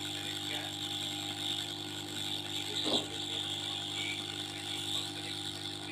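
SMD hot-air rework station blowing steadily, with a constant hum and hiss, while an IC is heated to solder it onto a circuit board. A brief faint tap about three seconds in.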